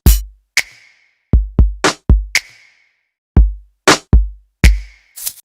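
Background music: a sparse drum-machine beat of deep kick-drum thumps and sharper snare-like hits, with short silent gaps between the strokes.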